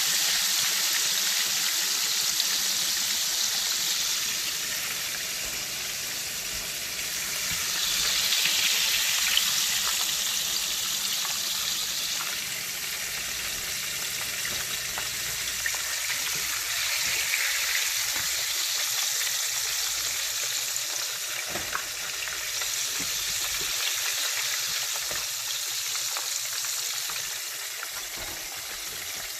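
Breaded chicken wings deep-frying in hot oil in a Dutch oven: a steady sizzle that swells twice, about a third and about halfway through, with a few faint clicks.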